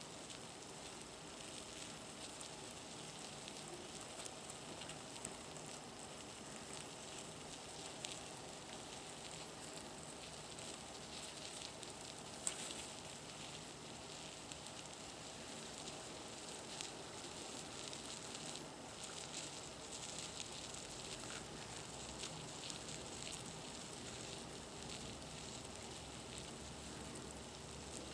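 Feeder worms crawling and burrowing through dry wood shavings: a faint, continuous rustling and crackling with scattered small ticks and one sharper click about halfway through.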